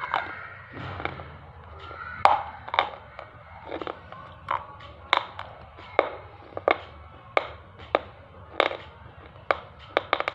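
Hard pieces of edible slate ('black triangle') being bitten and chewed, giving sharp, dry crunches roughly every half second to second.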